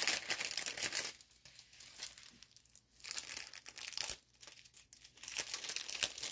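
Clear plastic wrap around a rolled diamond-painting canvas crinkling and tearing as it is handled and pulled open by hand. Loudest in the first second, then quieter, with bursts of crinkling again from about three seconds in.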